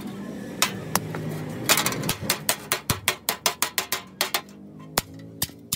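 Hand hammer striking a thin, rusty iron sheet laid over an iron anvil block. A few separate blows come first, then from about two seconds in a fast run of light blows, about four to five a second.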